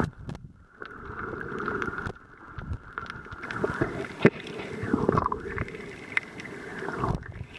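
Boat motor running steadily with a held whine, over a rumbling wash and scattered sharp knocks.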